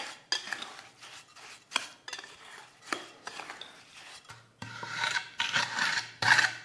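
A steel trowel scrapes and stirs stiff lime-and-sand mortar in a glass bowl, making irregular gritty scrapes. The scraping grows louder and denser in the last couple of seconds.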